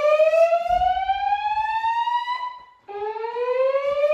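Slow-whoop evacuation tone from a Notifier NFS2-3030D fire alarm voice-evacuation system played through Gentex speakers. It is a long, steadily rising sweep that cuts off about three seconds in and starts again from low.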